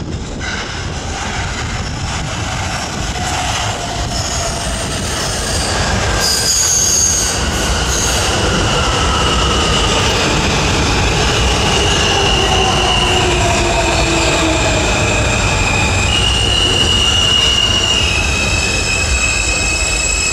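R160A-2 subway train with Alstom ONIX propulsion pulling into a station with a steady rumble. Several whines fall in pitch as it slows, and high steady squealing tones, stepping in pitch, come in over the second half.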